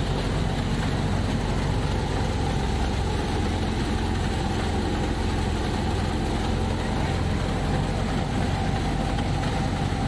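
Wheat thresher running at a steady speed, powered by a Fiat 480 tractor's diesel engine: a constant, even machine drone with a low hum.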